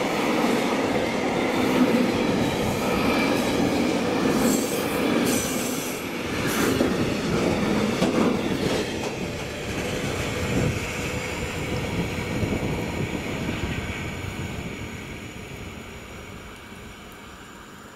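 Loaded container flat wagons of a freight train rolling past close by, wheels clattering over the rails with some high-pitched wheel squeal. The last wagon passes about ten seconds in and the rumble fades away.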